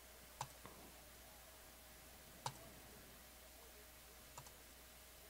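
Computer mouse button clicks: three sharp clicks about two seconds apart, the first followed closely by a fainter second click, with near silence between.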